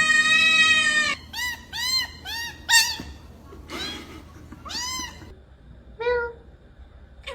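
A cat meowing: a long held note that stops about a second in, then a run of short meows that rise and fall in pitch, four in quick succession and then two more spaced out.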